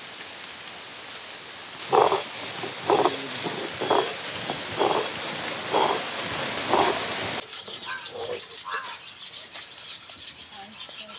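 Knife scraping scales off goatfish: about six rasping strokes roughly a second apart, starting about two seconds in, then a run of rapid short scrapes from about seven seconds in.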